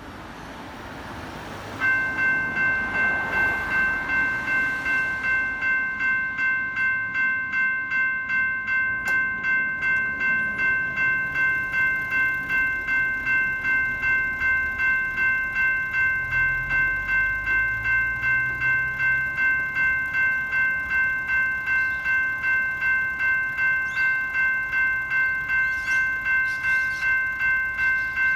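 A General Signals Type 2 electronic level-crossing bell starts up suddenly about two seconds in and dings steadily at roughly two strikes a second, with the ring of several fixed tones: the crossing warning for an approaching train. Before it starts, a car passes.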